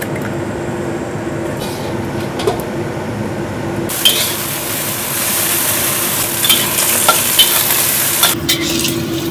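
Vegetables stir-frying in a wok: hot oil sizzling while a spatula scrapes and clicks against the pan. The sizzle becomes louder and brighter about four seconds in, over a steady low hum.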